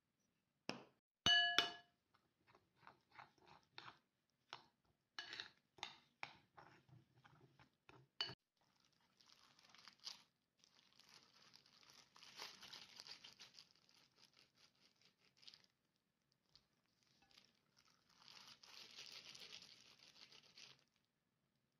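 A spoon clinks on a ceramic bowl with a brief ring, followed by a run of sharp taps. Then disposable plastic gloves crinkle and rustle as almond paste is kneaded and rolled by hand.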